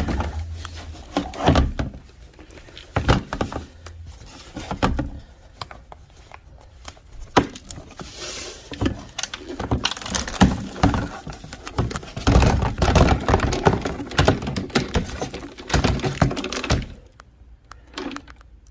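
Irregular knocks, clicks and rattles of things being handled, with a denser run of clattering about twelve seconds in.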